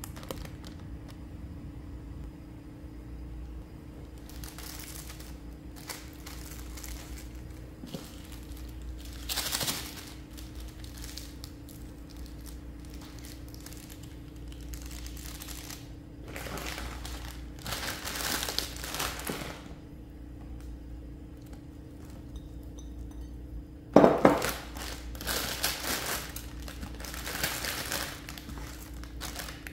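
Plastic wrapping being handled and crinkling in several separate bursts, the sharpest about 24 seconds in, over a steady low hum.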